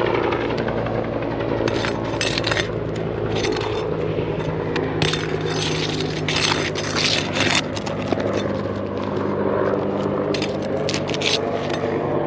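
Metal roofing tool scraping and clicking against roofing nails and old asphalt shingles while nails are pulled from a shingle that is still sealed down, with repeated sharp metallic clinks. A steady mechanical hum runs underneath.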